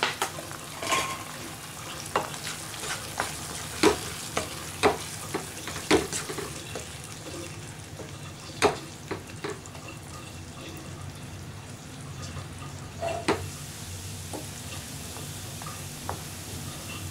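Wooden spatula stirring a thick tomato-onion masala in a frying pan, knocking and scraping against the pan at irregular intervals over a steady frying sizzle as the spiced masala cooks down.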